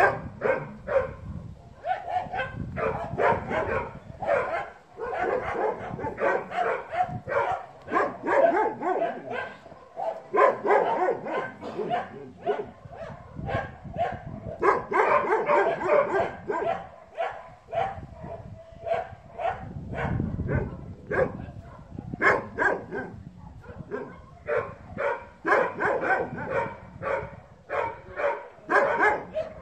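Dogs barking over and over, short barks coming in quick runs with brief pauses between them.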